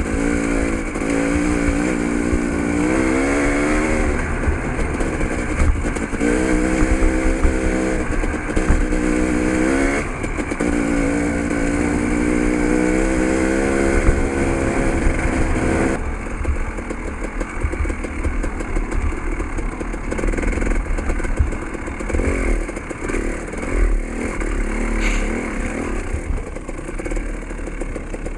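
Dirt bike engine under way on a trail, revving up three times with the pitch rising in the first sixteen seconds, then running at lower, uneven revs.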